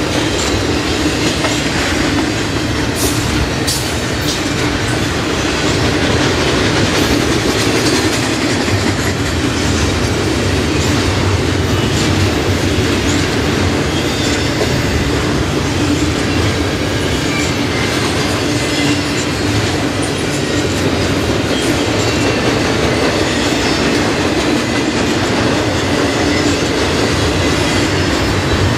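Double-stack intermodal container cars rolling past at close range: a steady rumble of steel wheels on rail, with scattered sharp clicks from the wheels and couplings.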